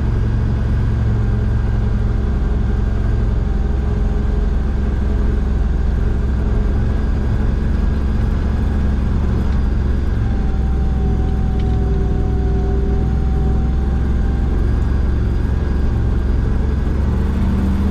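1987 Chevy grain truck's engine running steadily under load as the loaded truck drives on, a continuous low drone with a few faint whining tones above it.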